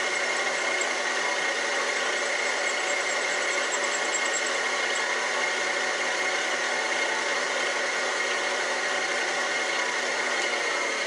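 Milling machine running, its motor and spindle drive giving a steady mechanical hum with a constant high tone.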